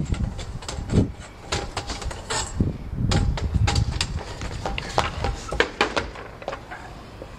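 A quick, irregular run of sharp clicks and knocks with a few heavier thumps: dancers' feet, including high heels, striking stone paving and metal folding chairs knocked and lifted against a table. The knocking thins out near the end.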